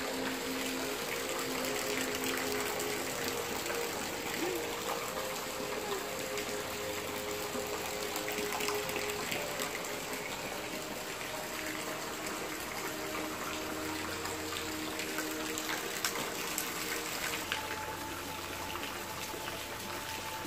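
Steady hiss of rain falling, with soft background music of held notes that change every second or two.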